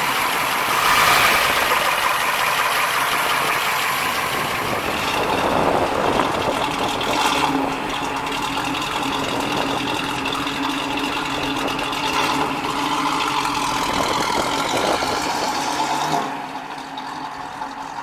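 1970 Camaro Z/28's 350 LT1 V8 running at idle, picking up briefly about a second in and again around six seconds in. It gets quieter near the end.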